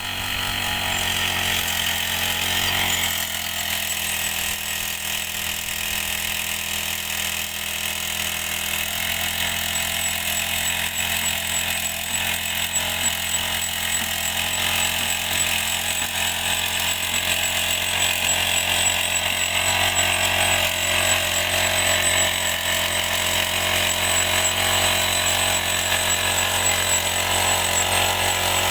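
Rail drilling machine running steadily at work on a railway rail, a continuous mechanical drone with a thin high whine over it.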